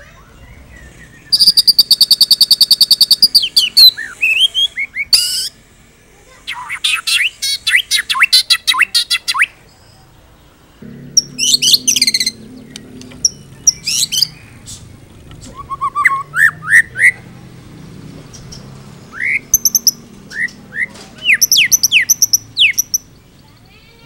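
White-rumped shama (murai batu) singing a loud, varied song in separate phrases packed with mimicked snippets: a fast rattling trill near the start, runs of quick notes in the middle, and short rising whistles in the second half.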